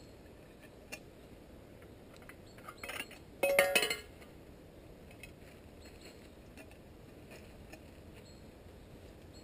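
Metal camping cookware clinking and rattling in a short burst about three and a half seconds in, with a brief ringing tone, after a smaller rattle just before it and an isolated click early on.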